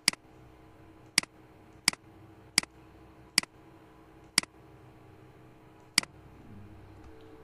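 Computer mouse clicking, seven sharp single clicks at uneven intervals, over a faint steady hum.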